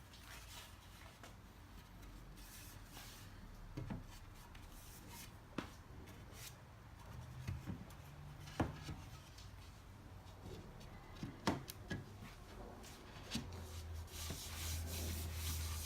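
Quiet rubbing of wood on wood or by hand, with a few light knocks and clicks as boards are handled, and a louder stretch of rubbing near the end.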